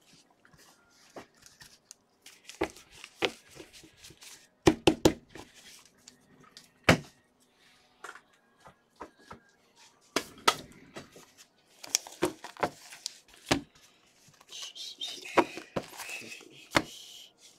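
Gloved hands handling trading cards and packaging: irregular sharp taps and clicks, a few louder than the rest, with a rustle over the last few seconds.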